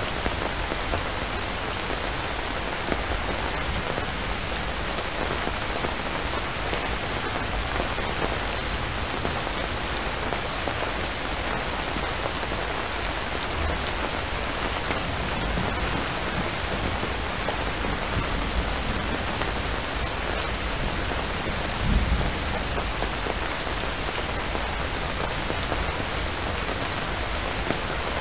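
Steady heavy rainfall, an even hiss of many drops. About three quarters of the way through comes a brief low rumble of thunder.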